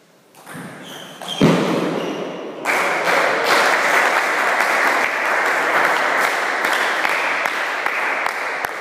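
Spectators applauding at the end of a table tennis point, with clapping starting about three seconds in and continuing steadily. A sudden loud cry or thump comes about a second and a half in, just before the applause.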